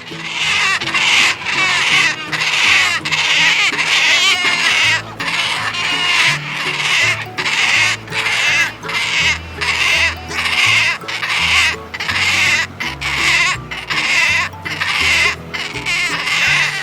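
Goats bleating over and over, one wavering call after another with short breaks, over background music.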